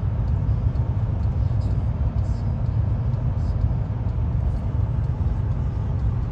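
Steady low rumble of a passenger train under way, heard from inside a dome car.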